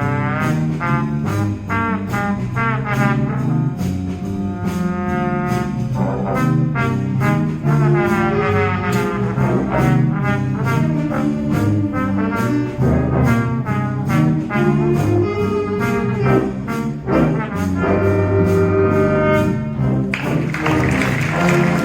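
School concert band playing a brass-led, jazz-style piece with a steady beat. A noisy wash joins the music about twenty seconds in.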